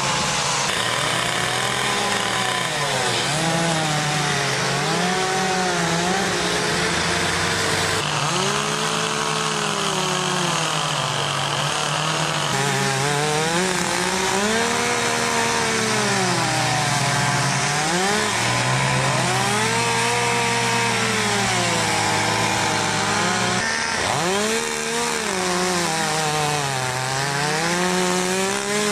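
Petrol chainsaw carving into timber, its engine revving up and dropping back again and again as the chain bites into the wood.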